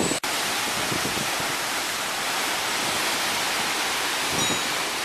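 A steady, even rushing hiss that follows a sudden cut in the sound and holds level throughout, with a few faint low knocks near the end.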